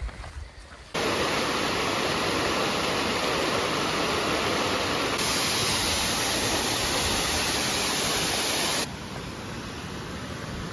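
Waterfall cascading over rock ledges: a steady, even rush of falling water that starts suddenly about a second in and drops to a quieter hiss near the end.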